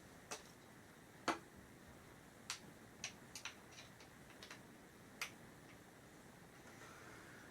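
Light clicks and taps, about ten of them at irregular spacing, the loudest about a second in, from bench parts and hardware being handled during assembly.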